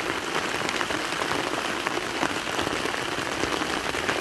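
Heavy rain falling on the river and the boat: a dense, steady patter of drops with many close individual drop hits.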